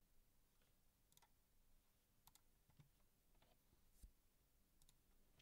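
Near silence, with about six faint, sharp clicks scattered through it from working a computer's mouse or keys.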